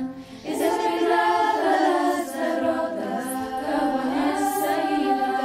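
Choir singing in held harmonies. The voices drop away briefly just after the start, then come back in.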